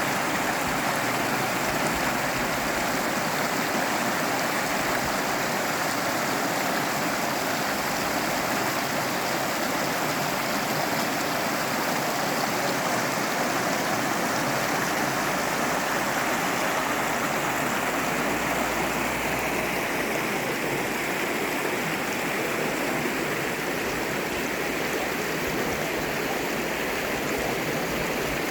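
Fast river rushing over rocks: a steady, even roar of flowing water.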